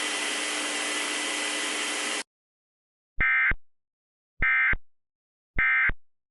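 Radio static hiss with a faint hum cuts off about two seconds in. Three short bursts of Emergency Alert System SAME data tones follow, about a second apart: the end-of-message signal that closes the alert.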